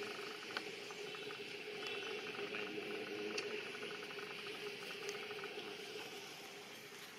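Long-tailed macaques chewing and biting ripe mango: soft wet smacking with small scattered clicks, over a steady hum in the background.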